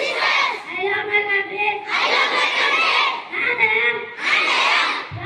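A group of schoolchildren reciting a pledge aloud in unison, phrase by phrase, with a boy's voice leading through the microphone in turn with the many voices together.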